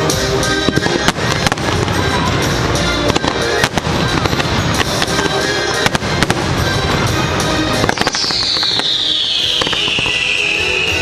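Fireworks display: rapid bangs and crackling bursts going off over music. About eight seconds in, a long whistle falls steadily in pitch.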